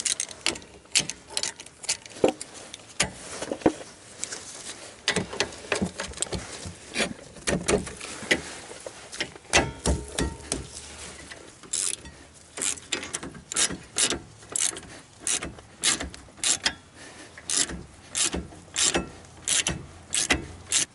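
Socket ratchet clicking in repeated back-swings while the lower brake caliper slide pin bolt is loosened and backed out. The clicks come irregularly at first, then settle to about two a second in the second half.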